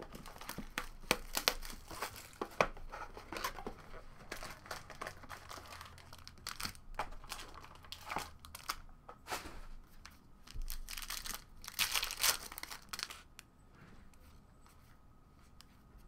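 Plastic and foil wrapping on a sealed box of trading cards being torn open and crinkled by hand: a run of crackles and rips, loudest about twelve seconds in, then much quieter near the end.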